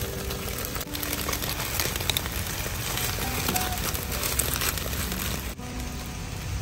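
Charred banana-leaf parcels crackling and crinkling on a charcoal grill as metal tongs turn them, a dense run of fine crackles.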